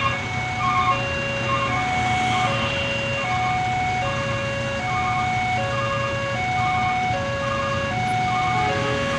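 Railway level-crossing warning alarm: an electronic chime repeating the same few tones about once a second, over a steady low rumble.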